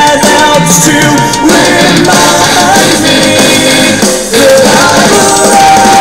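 Music with singing and percussion playing from the Xqisit xqS10 Bluetooth portable speaker during a sound test, with a short drop in level about four seconds in.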